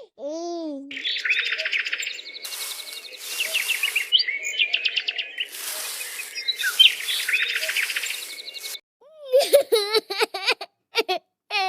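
Birds chirping and twittering rapidly for most of the stretch, then from about nine seconds a series of short, pitched, wavering cries.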